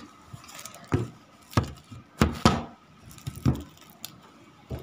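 About six sharp knocks and thuds at irregular intervals, as objects are handled and set down on a hard surface.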